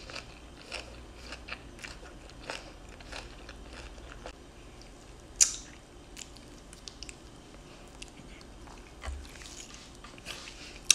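Close-miked chewing and biting while eating steamed chicken and fresh herbs, with scattered crunches and mouth clicks. There is one sharp, loud crack about five seconds in and another at the very end.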